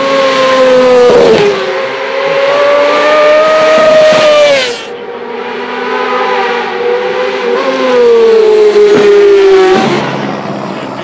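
Kawasaki ZX6R inline-four supersport race bike with an Akrapovič development exhaust, revving hard at racing speed. Its high-pitched engine note holds, dips briefly about a second in, then climbs and falls again with the throttle and gear changes, and it changes sharply twice as separate passes are cut together.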